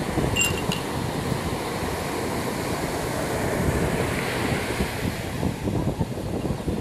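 Ocean surf breaking, with wind buffeting the microphone. Shortly after the start come two light glassy clinks as the absinthe glass is handled.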